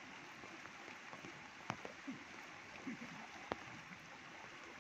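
Steady hiss of rain and running floodwater, with two sharp clicks about a third of the way in and again past the middle.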